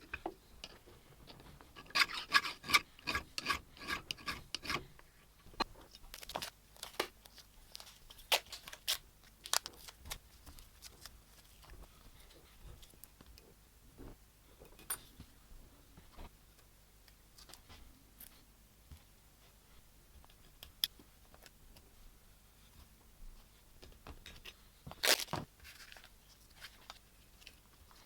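Hand work on metal parts: scattered clicks, taps and scrapes, with a quick run of ringing taps about two seconds in and a sharper clatter near the end.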